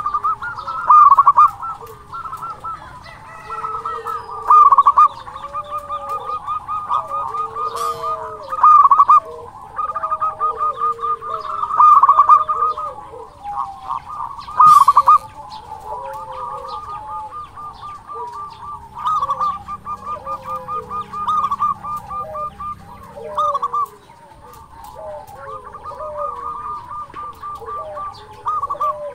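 Zebra dove (perkutut) cooing: quick runs of staccato notes rolling into lower, curving coos, with the loudest phrases coming every few seconds.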